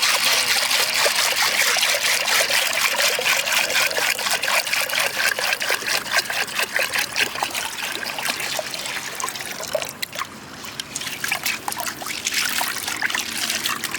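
Water being poured into a clay pot of dried field beans to soak them, a steady splashing trickle that thins out about ten seconds in, with a short lighter pour near the end.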